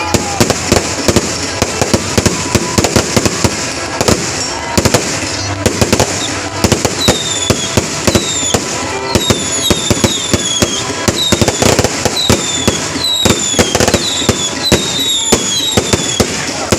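Fireworks display going off in a dense, continuous barrage of sharp bangs and crackles. From about six seconds in, many short falling whistles repeat over the bangs.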